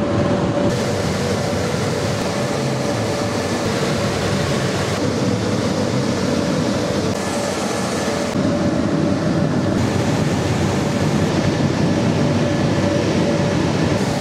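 Automatic car wash machinery running: a steady loud din of motors and swishing cloth washer strips, with a faint constant hum and the hiss swelling and easing every few seconds.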